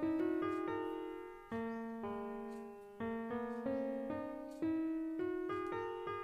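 Background piano music: soft notes struck and left to ring and fade, with a new chord about every one and a half seconds.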